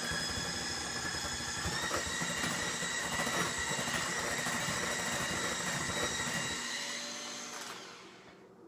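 Electric hand mixer running with its beaters in a thick avocado and cocoa pudding, a steady motor whine that steps up slightly in pitch about two seconds in. Near the end the motor dies away.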